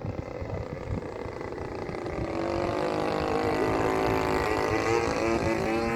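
Engine of a large RC model airplane running, its pitched drone growing louder from about two seconds in and wavering slightly in pitch. Wind rumble on the microphone underneath.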